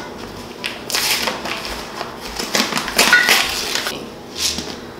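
Dry rolled oats poured from a cardboard canister into the plastic bowl of a small food chopper, rattling in several short pours.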